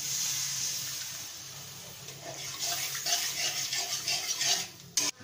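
Dal water poured from a bowl into a metal pan of fried spice paste, a steady splashing pour, then a spatula stirring and scraping through the thin curry in short repeated strokes from about two seconds in.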